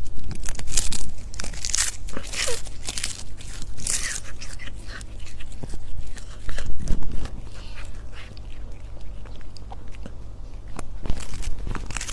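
Irregular crunching and chewing from a cat eating, over a steady low hum.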